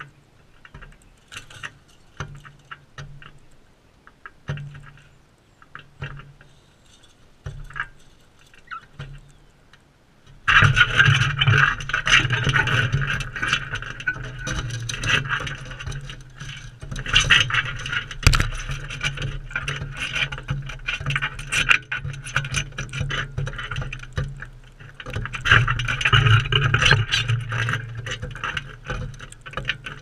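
Galahs' beaks and claws tapping and scraping on the bird bath rim and the camera right next to the microphone. It starts as scattered taps and clicks, then turns suddenly into loud, continuous scratching and scraping about ten seconds in.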